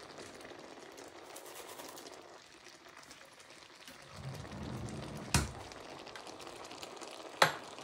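Prawns, goat kidney and liver cooking in a little spiced liquid in a non-stick pan: a soft, steady simmering sizzle. Two sharp knocks cut through it, about five seconds in and again near the end, the second louder.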